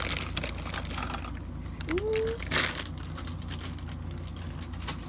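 Small plastic packaging being handled: light, irregular clicks and taps, with one louder knock a little over halfway through.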